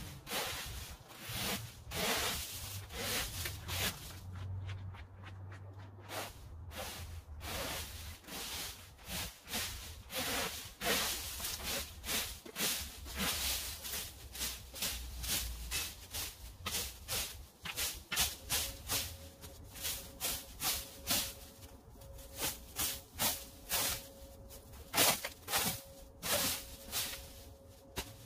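Leaf rake scraping through dry cut grass and debris, in a steady series of short strokes about one to two a second.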